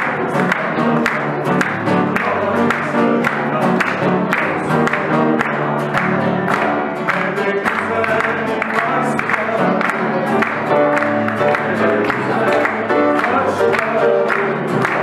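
A live song with strummed acoustic guitar and a woman singing into a microphone, with hands clapping along to the beat.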